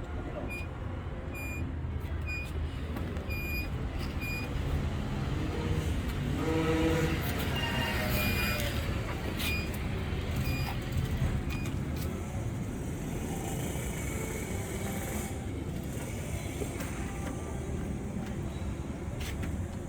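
Street traffic with a steady engine rumble. A short high electronic beep repeats about once a second for the first few seconds, and a louder vehicle passes about seven seconds in.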